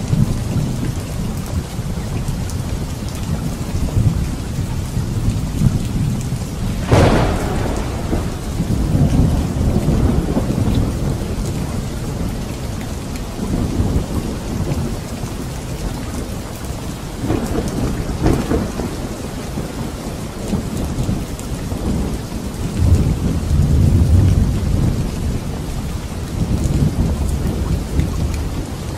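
Thunderstorm: steady rain with low rolling thunder. A sharp thunderclap cracks about seven seconds in, and another, weaker one comes about eleven seconds later.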